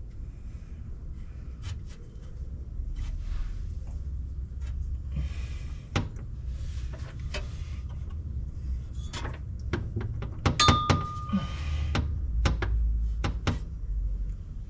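Scattered clicks, knocks and scrapes of hands working on metal parts under a car, over a steady low rumble. About ten and a half seconds in comes a sharper metallic clink that rings briefly.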